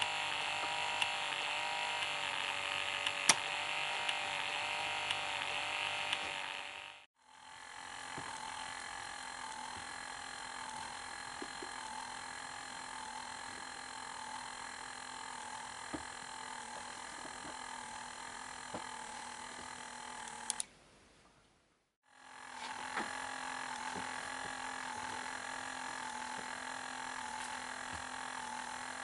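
K'nex electric motors and gearing running, a steady whirring hum with scattered faint clicks, cutting out briefly twice.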